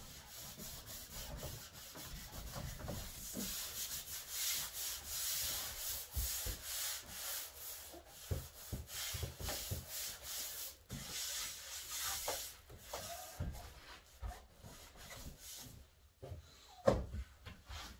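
Repeated hand rubbing strokes over a surface, a scratchy hiss that swells and fades with each stroke, with one sharp knock near the end.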